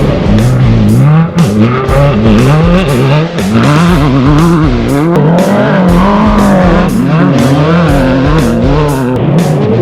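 Off-road race vehicle engines revving up and down over a loud rock music soundtrack with a steady drum beat.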